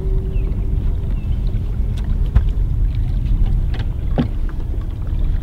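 Wind rumbling over the microphone on an open fishing boat, with a faint steady hum underneath and a few light clicks and knocks, the sharpest about two and a half seconds in.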